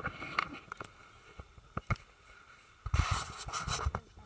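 Scratching and clicking on a handheld phone's microphone, then a louder rough rustle with a low rumble about three seconds in.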